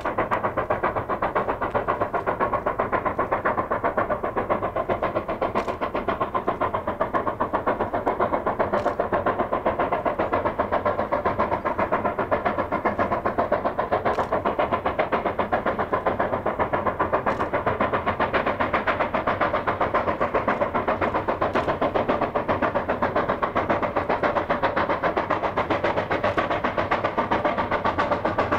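Steam locomotive working hard, its exhaust beating in a fast, even chuff, with a few faint sharp clicks now and then.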